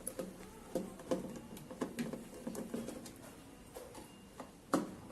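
Irregular light clicks and knocks of parts being handled and fitted onto a beauty machine, with one louder knock near the end.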